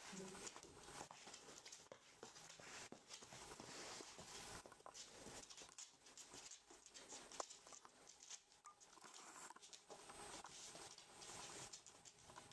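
Faint, irregular pattering and clicking of rough collie puppies' paws and claws on a wooden floor as they move about and play, with one sharper click about seven seconds in.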